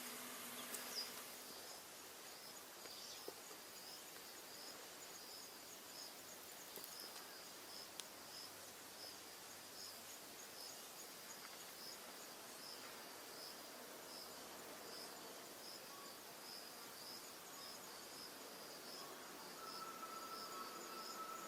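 Faint insect chirping: a short, high chirp repeating evenly a little more than once a second over a soft steady hiss. Near the end a thin, steady, lower tone joins in.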